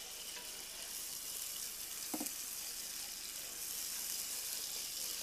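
Margarine, garlic and flour sizzling steadily in a frying pan on a gas hob while they are stirred with a wooden spoon.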